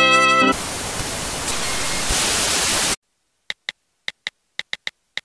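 A burst of white-noise static hiss that cuts off suddenly. After a short gap comes a run of eight quick, unevenly spaced clicks like taps on a phone keyboard.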